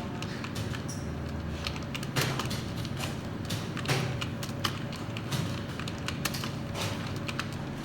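Computer keyboard keystrokes: irregular clicks from a typing test still in progress, over a steady low hum.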